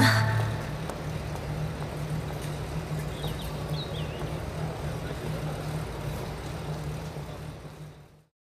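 The song's last note dies away right at the start, leaving a low steady hum under a faint hiss. The hum fades out shortly before the end.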